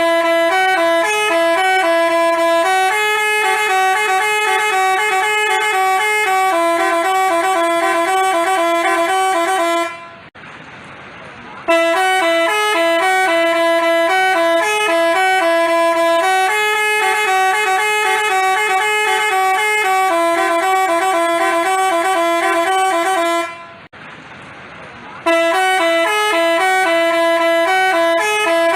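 Telolet basuri musical bus horn playing a repeating tune of quick stepping notes, loud and continuous, breaking off twice for about a second and a half, once about ten seconds in and again near the end, with only a noisy hush in the gaps.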